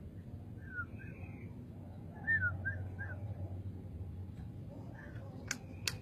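A caged bird giving short whistled chirps, with a quick run of four down-slurred notes about two and a half seconds in. Two sharp clicks come near the end, over a steady low hum.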